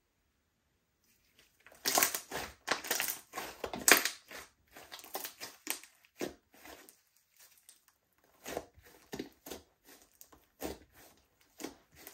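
Slime being squeezed and kneaded by hand, giving runs of irregular wet crackles and pops. They start about two seconds in, pause briefly past the middle, then pick up again.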